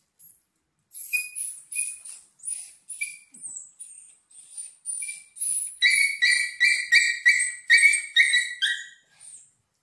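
A puppy yelping and crying in a rapid series of short, high-pitched cries, about two to three a second, while its infected bite wounds are treated. The cries grow louder from about six seconds in, and a last faint one comes near the end.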